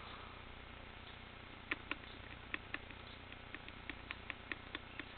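Laptop keyboard key tapped repeatedly during boot, about a dozen sharp clicks starting a little under two seconds in, to reach the Windows advanced boot options menu. A faint steady hum lies underneath.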